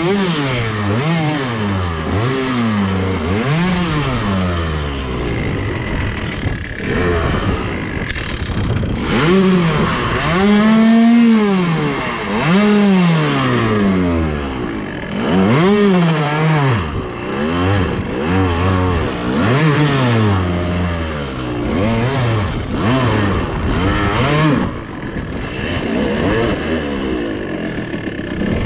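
Two-stroke dirt bike engine revved in short repeated bursts, its pitch rising and falling every second or two as the bike is ridden slowly up a steep hill through brush. Clatter and scraping of dead branches against the bike come in between the revs.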